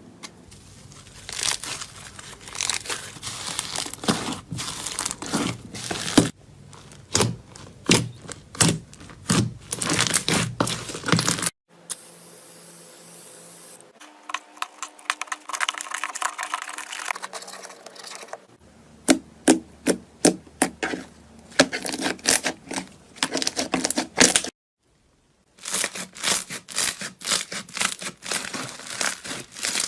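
Slime being squeezed, poked and stretched by hand, giving runs of sharp clicking, crackling pops. It comes as short clips joined by abrupt cuts, with a moment of silence near the end.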